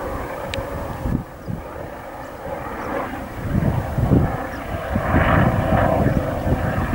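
Eurocopter EC135 air-ambulance helicopter flying overhead; its rotor and engine sound grows louder about two-thirds of the way in. Wind buffets the microphone throughout.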